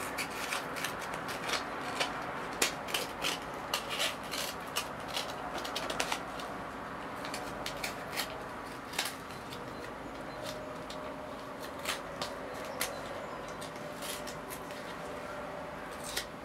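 Padded paper mailer being slit open with a small blade: irregular crackles and rustles of the paper, dense in the first few seconds and sparser later.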